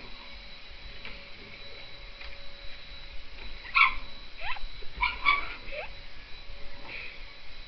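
Dog giving a few short, high yips and rising whines, clustered around four to five and a half seconds in, with quieter stretches between.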